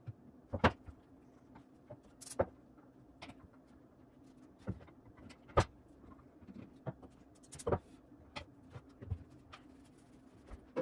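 A handful of sharp knocks and clicks, spaced a second or two apart, as wooden cribbage board halves, magnets and a glue bottle are handled and set down on a plywood workbench, over a faint steady hum.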